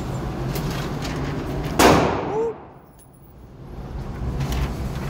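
A single loud gunshot about two seconds in at an indoor range, over a steady low hum; the sound dips away for about a second after it before the hum returns.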